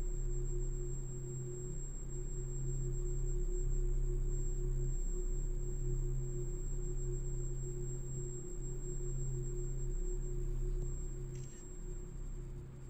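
Low sustained droning tones with a fainter, higher tone above them, dipping briefly every few seconds: an ambient suspense drone.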